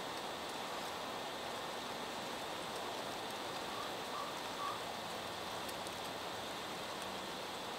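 Steady rushing of river water, an even hiss-like noise with no motor tone, with three faint short chirps about four seconds in.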